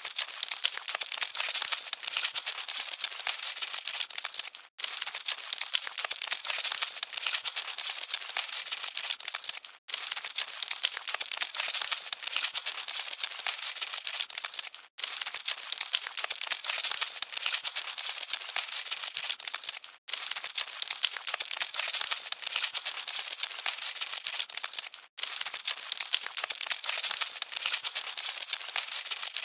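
Cockroaches scuttling: a dense, rapid, dry crackling rustle that repeats as a loop about five seconds long, with a brief break between repeats.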